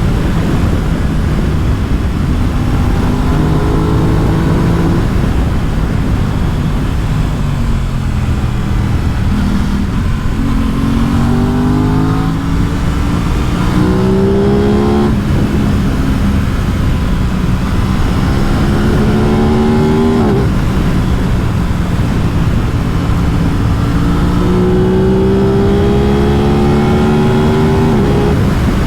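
Aprilia RS 660's parallel-twin engine under way, revving up in pitch several times. Each climb ends in a sudden drop as it shifts up a gear.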